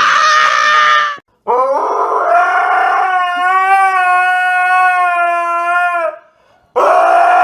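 A dog howling in three pitched howls. A high one breaks off about a second in, a long steady howl of about four and a half seconds follows, and a short one comes near the end.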